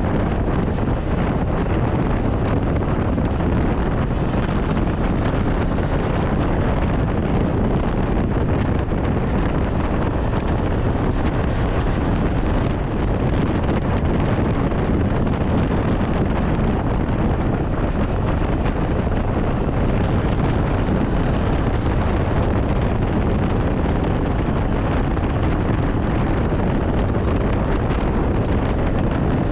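Steady wind rushing over the microphone of a moving Honda CB500X motorcycle, with its parallel-twin engine running underneath at an even pace.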